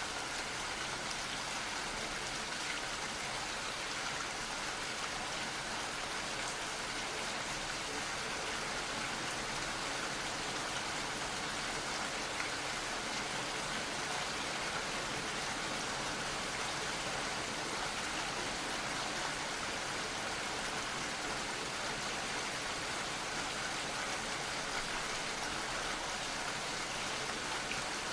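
Gentle rain falling steadily, a soft even patter of drops with no let-up.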